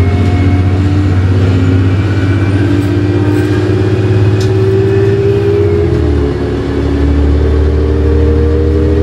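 Cabin sound of a 1998 New Flyer C40LF bus with a Cummins Westport C Gas Plus natural-gas engine and Voith D863.3 three-speed automatic, accelerating with a steadily rising engine and drivetrain whine. About six seconds in the pitch drops suddenly as the transmission shifts up, then starts climbing again.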